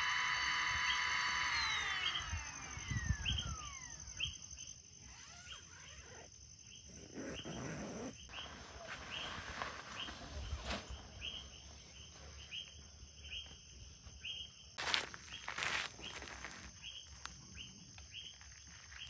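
A loud insect drone holds steady, then slides down in pitch and fades over about two seconds. After it, a short high chirp repeats about twice a second, with a few soft knocks.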